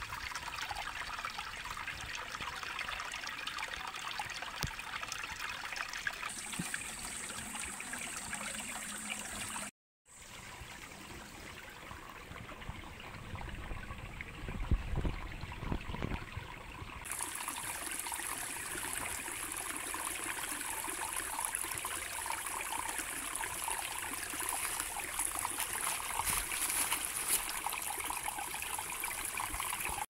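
A small mountain stream trickling and burbling over rocks, steady throughout. It cuts out for a moment about a third of the way in, returns softer, and comes back to full strength a little past halfway. There is a soft low thump about halfway through.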